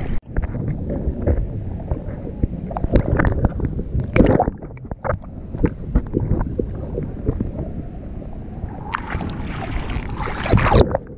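Sea water sloshing and splashing around a GoPro in its waterproof housing, with wind buffeting the microphone. There is a louder splash about four seconds in and another near the end.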